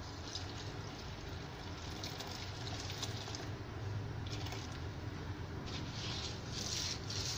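Coconut milk poured onto glutinous rice in a steamer tray, with soft wet splashing, then near the end a hand squishing and spreading the soaked rice. A steady low hum runs underneath.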